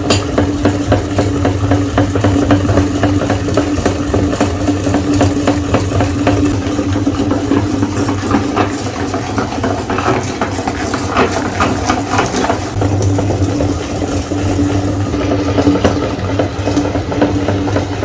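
Electric meat grinder running steadily with a constant motor hum and a rapid crackle, as it grinds Oreo cookies.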